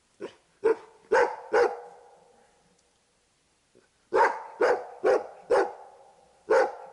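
Hunting dog barking at a sable it has treed: four quick barks, a pause of about two seconds, then five more.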